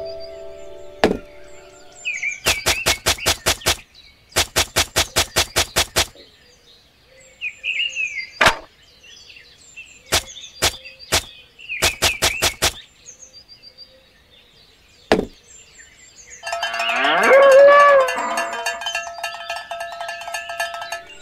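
A cow moos once: a long call that rises and then holds, about three-quarters of the way in. It is the loudest sound. Before it come several runs of rapid, evenly spaced clicks, each lasting a second or two, and a few short high chirps.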